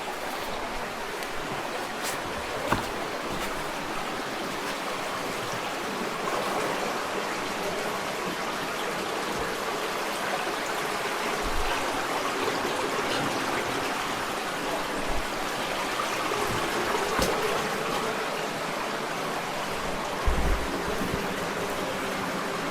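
Creek water running steadily through a cave. A few faint knocks and a couple of low thumps are heard over it.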